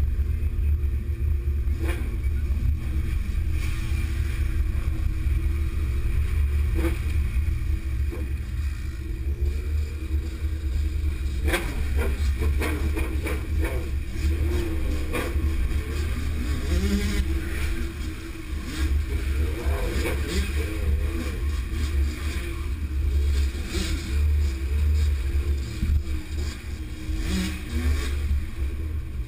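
A group of motorcycles riding together, engines running and revving, heard from a moving bike, with a heavy low rumble of wind on the microphone.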